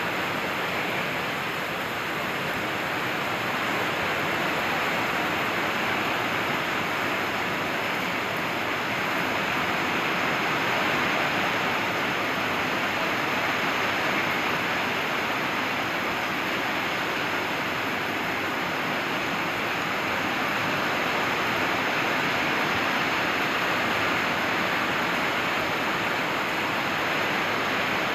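Heavy rain falling steadily, an even hiss that holds the same level throughout.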